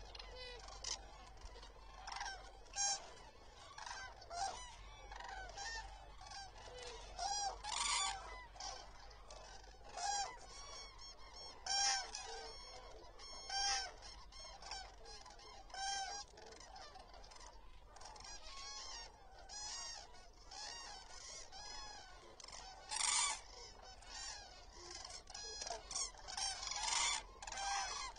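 A flock of common cranes calling: loud trumpeting calls come every second or so, near and far birds overlapping.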